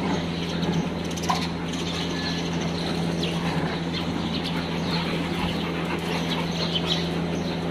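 A steady low electrical hum over a constant noise bed, with short high chirps scattered throughout.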